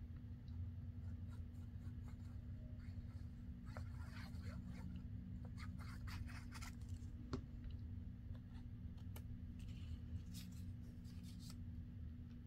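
Faint paper handling by hand: soft rustles, rubs and light taps as small paper tags are glued with a fine-tip glue bottle and pressed down, scattered through the middle stretch over a steady low hum.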